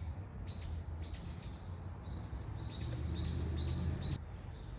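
A small bird chirping over and over, quick high chirps about three a second, over a low steady rumble; the chirps and rumble cut off together about four seconds in.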